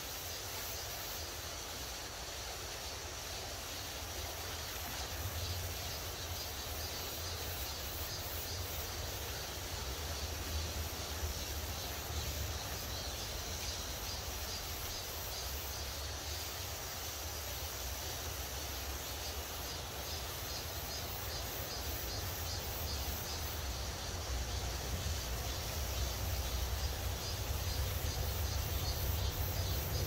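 Mountain stream flowing over rocks in a steady rush, under a low rumble that grows louder near the end.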